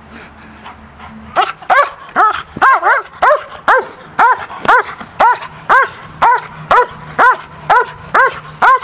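Young DDR German Shepherd barking over and over while lunging on the leash during bite work. The barks are loud and start about a second and a half in, coming about two a second in an even rhythm.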